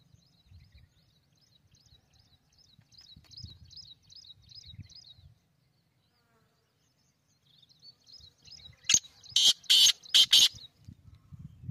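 Black francolin calling: a burst of five loud, harsh notes about nine seconds in. Before it, a faint run of thin, rapid chirps at about four a second breaks off for a couple of seconds, then resumes.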